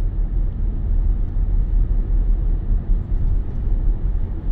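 Steady low road rumble from a car driving at speed, heard inside the cabin: tyre and engine noise with no distinct events.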